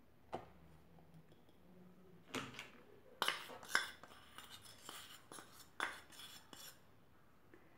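A spoon clinking, tapping and scraping against a bowl as flour is added to the mixer jar: one click near the start, then a scatter of short knocks and scrapes from just past two seconds to nearly seven, the loudest at about three to four seconds and again near six.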